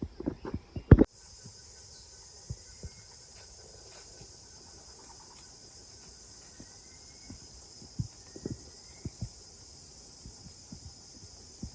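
A steady high-pitched chorus of insects, with a few scattered thumps. The loudest is a cluster of thumps in the first second, before the chorus sets in.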